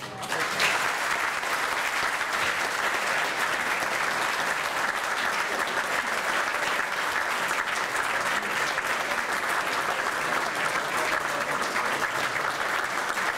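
A roomful of people applauding: dense, steady clapping that breaks out suddenly and keeps going without a break.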